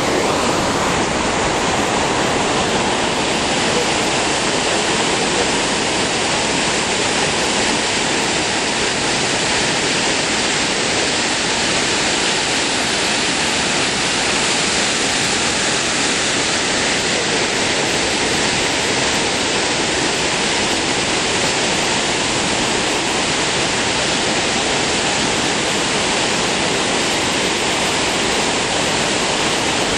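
Kicking Horse River whitewater rushing loud and steady as it churns through a narrow rock channel.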